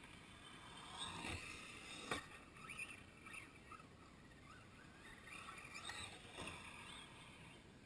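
Faint, intermittent whine of an electric RC truck's motor, rising and falling in pitch as it works over a dirt jump track, with one sharp click about two seconds in.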